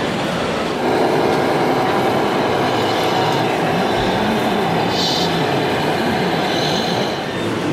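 Steady exhibition-hall noise of crowd chatter and radio-controlled scale model trucks driving, stepping up in level about a second in.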